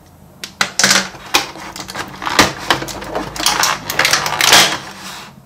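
Small plastic Play-Doh tools and their packaging being handled: irregular clicks and clatters with crinkly rustling, busiest in the second half.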